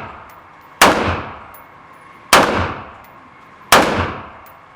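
Three gunshots about a second and a half apart, each with a long echoing tail.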